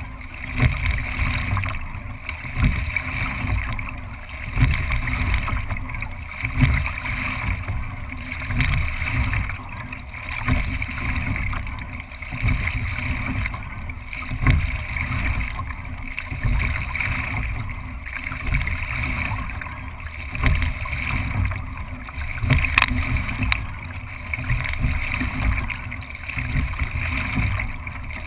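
Wind and water rushing past a bow-mounted camera on a racing single scull, swelling about every two seconds with the sculler's strokes. One sharp click stands out near the end.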